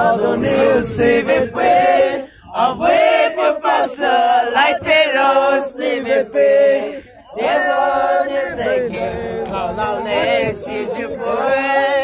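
Men singing together in a chant, phrases of held notes broken by two short pauses for breath.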